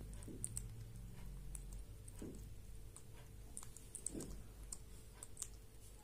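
Indian ringneck parrot eating small fruit: faint, irregular little clicks of its beak working the berries, with three soft duller sounds about two seconds apart.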